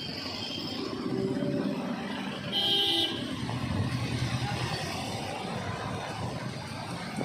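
Street traffic passing, with a vehicle horn honking once for about half a second a little before the middle.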